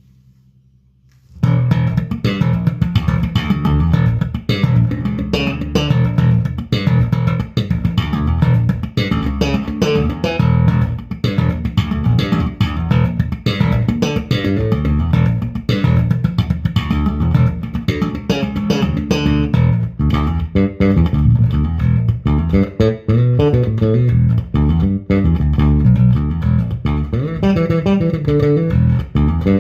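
Bass guitar being played, starting about a second in: a run of plucked low notes that keeps moving from note to note.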